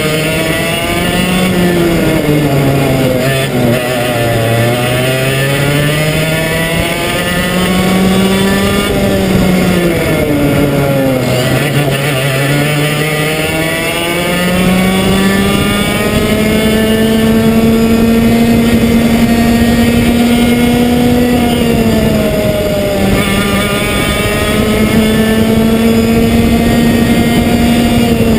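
Komet two-stroke kart engine at racing speed. Its note falls as the revs drop into corners, about 4 s, 12 s and 23 s in, and climbs again on each straight, holding high and steady along the longest straight.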